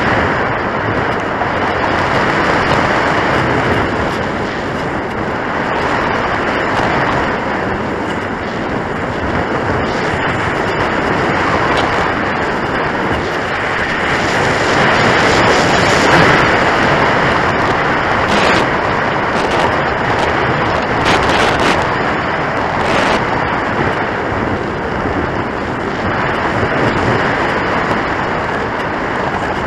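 Airflow rushing over the onboard camera's microphone on an RC soaring glider in flight, a steady noisy rush that swells and eases, loudest about halfway through.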